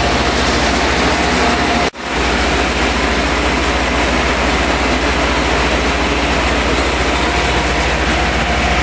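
Turbo mill pulverizer running steadily while it grinds rubber film offcuts into granules, with its air-conveying cyclone system: a loud, even machine noise with a constant high whine over a deep hum. The sound drops out for an instant about two seconds in.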